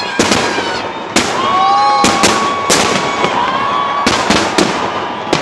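Aerial fireworks bursting overhead: a rapid, irregular series of sharp bangs and booms, about nine in five seconds, over continuous crackling, with echoes after each burst.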